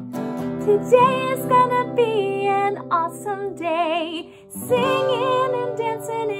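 A woman singing while strumming an acoustic guitar. One held note wavers before a short break in voice and guitar about two-thirds of the way through, after which both carry on.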